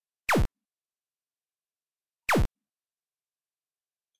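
Strange electronic zap sound from the PC: a short tone sweeping fast from high to very low pitch, twice, two seconds apart.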